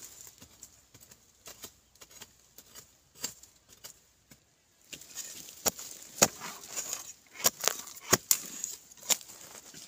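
Digging in dry, clumpy soil: earth scraping and crumbling, with sharp knocks as hard clods are struck. Only faint scattered clicks at first, then from about halfway steady scraping with many knocks.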